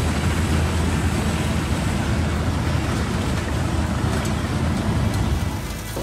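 Large wood chipper running: a steady low engine drone under a dense rushing, grinding noise, which drops off just before the end.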